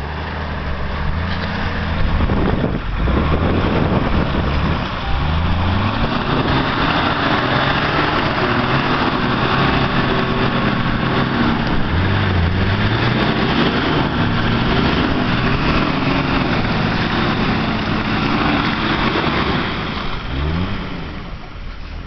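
Off-road vehicle engine revving hard, its pitch climbing and dropping again and again, over a loud rushing noise.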